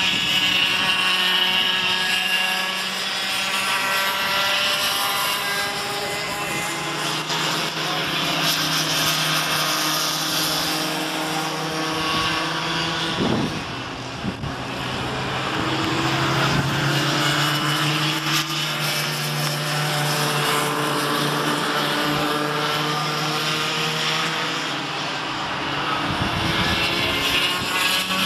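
Several Cadet 9 go-karts' small two-stroke engines buzzing as a pack races round the track, their pitches rising and falling as the drivers come off and back on the throttle. The sound dips briefly about halfway through.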